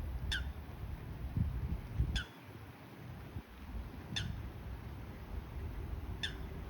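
Strong wind rumbling on the microphone, with a short, high chirp falling in pitch that repeats about every two seconds, three times.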